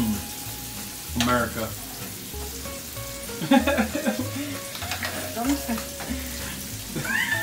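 Pork chops sizzling and frying in melted butter in a griddle pan, with a spoon stirring and basting the butter over them.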